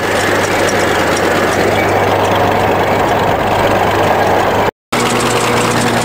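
Diesel engine of an old 20-ton crawler bulldozer running steadily, heard from the operator's seat. The sound cuts out for a moment just before five seconds in, then the engine carries on with a steadier hum.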